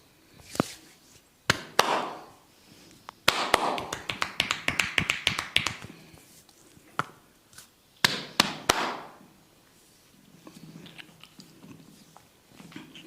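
Hands massaging a head: sharp slaps and taps on the scalp with a rustle of hair after them, and a quick run of rapid crackling clicks about three seconds in that lasts a couple of seconds. A few more hard strikes follow, then softer rubbing near the end.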